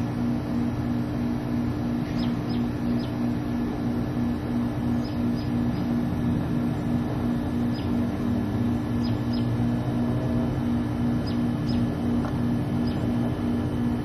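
Steady low machine hum with an even, fast pulse, with short high bird chips every second or two over it.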